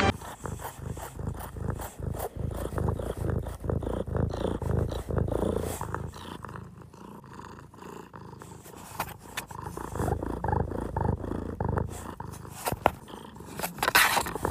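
A cat purring close to the microphone, a low steady pulsing that weakens for a few seconds in the middle. A brief noisy burst comes near the end.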